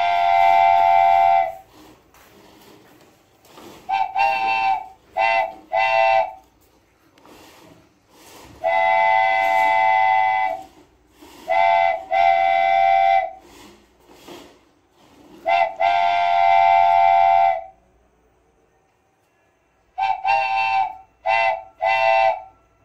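A horn sounding a steady chord of several tones, in long blasts of one to two seconds alternating with groups of quick short toots, repeated throughout with brief quiet gaps.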